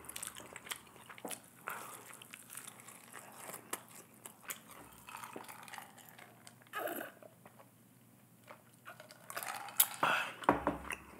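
Close-miked eating sounds: quiet, intermittent chewing with small clicks and smacks of the mouth, then drinking from a glass of ice water a little past halfway.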